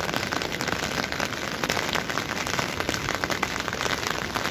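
Heavy rain falling steadily, a dense patter of drops on wet concrete and the water in an irrigation canal.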